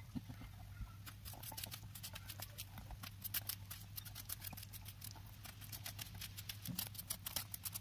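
Knife slicing through peeled raw patty pan squash held in the hand, chunks falling into a glass bowl: a quick run of many crisp little cutting clicks starting about a second in, over a steady low hum.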